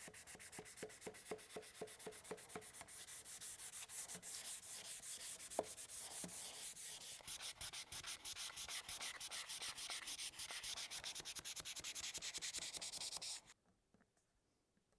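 Final sanding of an elm bench: sandpaper rubbing on the wood in quick, even back-and-forth strokes, with a short squeak about five and a half seconds in. The sanding stops abruptly near the end.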